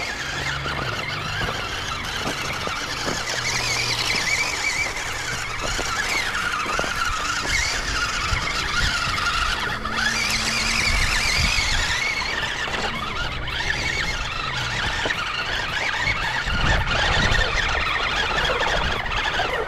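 Whine of a 1:12 scale LDRC LD-P06 Unimog RC truck's electric motor and gearbox, its pitch rising and falling with the throttle as the truck crawls over rocks.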